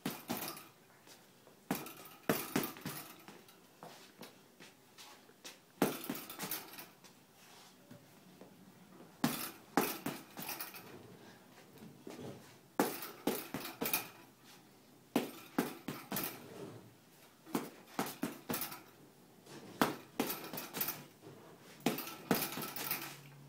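Child's punches hitting a hanging Everlast heavy punching bag in short flurries of several hits, every couple of seconds, with the bag's hanging chain clinking.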